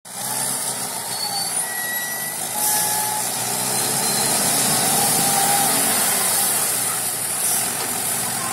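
Engine of a hydraulic sugarcane grapple loader running steadily, a low hum under a loud hiss, getting a little louder a few seconds in.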